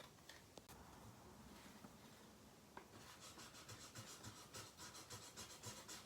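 Faint scratching and rubbing: a few soft clicks, then from about halfway a quick, even run of scratches.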